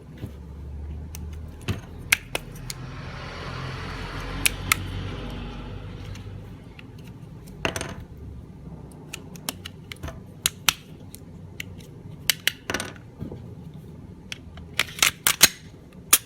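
Polymer80 Glock 19-type pistol being reassembled by hand: scattered sharp clicks and snaps of parts seating, a longer rubbing noise about three to six seconds in, and a quick run of clicks near the end.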